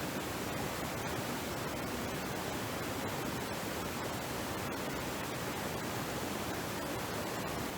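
Flowing stream: a steady, even rush of water.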